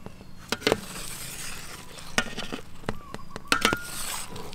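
Large cleaver-style kitchen knife cutting through a tray of cooked egg omelette, its blade knocking sharply on the metal tray beneath about five times, some in quick pairs.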